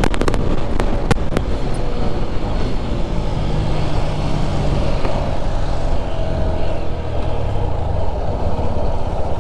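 Motorcycle engine running on the road with wind rush over the on-board microphone, its note dropping as the bike slows from about 50 to under 40 km/h. A few sharp cracks sound in the first second or so.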